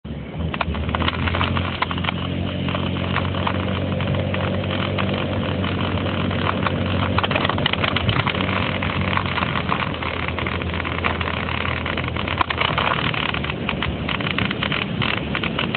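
Motor scooter engine running as it rides along a street, with wind rushing and buffeting against the microphone; the engine hum is clearest in the first half, the wind noise heavier later.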